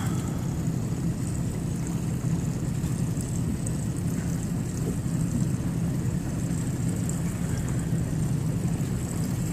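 Boat engine running steadily, a constant low hum.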